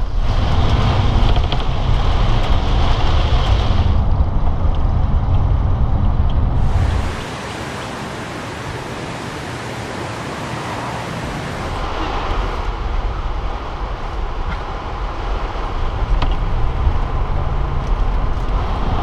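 Road noise of a car driving in the rain, heard from inside the cabin: a steady low rumble with tyre hiss on the wet road. For about five seconds in the middle the rumble drops away, leaving a quieter, even hiss.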